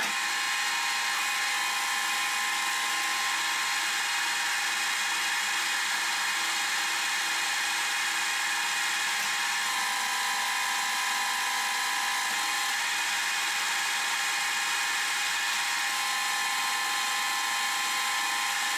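Metal lathe running with a CNMG carbide insert cutting a mild steel bar, facing the end and turning the diameter. The footage is sped up, so the cut comes as one steady whine at an even level.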